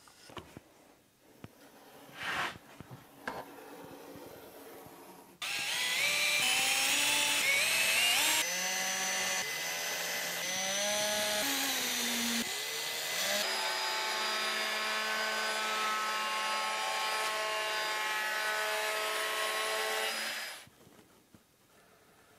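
Cordless drill-driver working into a wooden board: its motor whine rises and falls in steps as the trigger and load change, then holds a steady pitch and stops near the end. Light taps and knocks of handling come before it.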